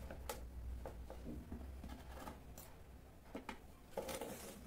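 Hands working at the base of a wired jade plant in a clay pot: scattered light clicks and scratchy rustling of soil, wire and pot, with a denser scratch about four seconds in.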